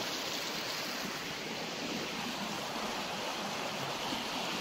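Small shallow creek flowing over stones and little rapids, a steady noise of running water.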